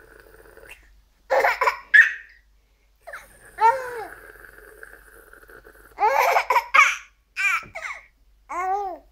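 Baby laughing in short, high-pitched bursts, about five times, with the pitch rising and falling in each.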